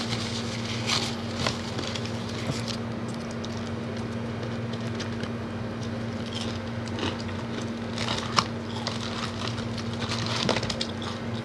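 Eating sounds: scattered crackles, crinkles and clicks of hands handling fried chicken and paper wrappers and boxes, with biting and chewing. A steady low hum runs underneath, and a sharp click stands out about eight seconds in.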